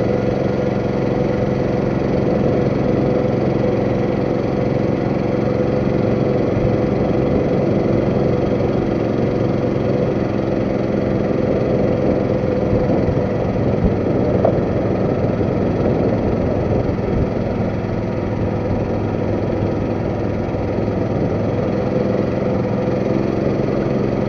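Boat engine running steadily under way, a constant drone that holds the same pitch and speed throughout.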